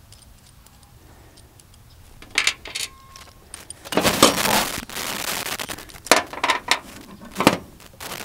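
Small metal parts of a wire rope clip (U-bolt, saddle and nuts) and a steel cable being handled, clinking and rattling in short clicks, with a longer scraping rattle about four seconds in.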